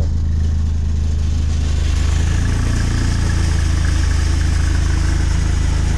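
VW Golf Mk7 R's turbocharged 2.0-litre four-cylinder idling steadily, a little high with the air-conditioning on, with the exhaust rattling and buzzing over it: it sounds awful. The rattle comes from the rear silencer, whose internal baffles have broken loose and need welding.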